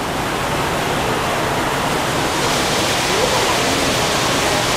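Waterfall rushing steadily into a pool, a constant loud hiss of falling water that grows slightly louder and brighter about halfway through.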